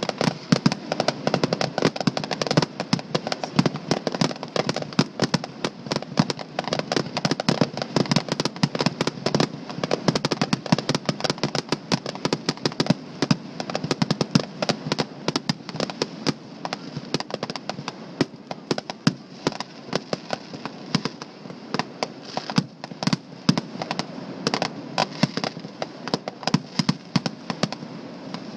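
Fireworks going off in quick succession: a dense, continuous run of bangs and pops, many a second, without a break.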